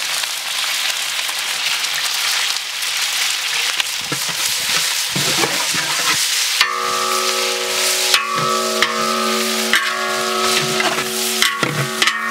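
Sliced onions sizzling in hot oil in a large aluminium pot, with a long metal spatula stirring and scraping against the pot. About halfway in, several steady tones join the sizzle, along with the scrapes.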